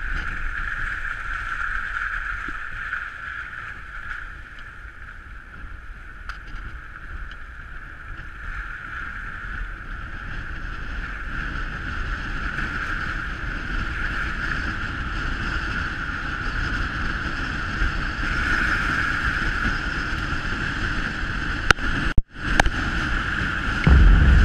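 Car driving along a snowy road, heard from a bonnet-mounted camera: steady wind noise on the microphone over road and engine rumble, with a steady hiss-like band throughout. Near the end there is a click and a brief dropout, then a sudden loud low boom starts.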